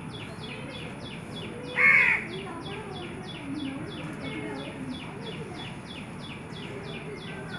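A crow caws once, loudly, about two seconds in, over a steady run of short high chirps repeating about three or four times a second.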